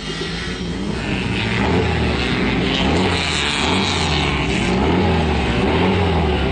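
Engine of a Volkswagen Beetle-bodied off-road race car revving over and over while the car sits stationary, its pitch rising and falling roughly once a second.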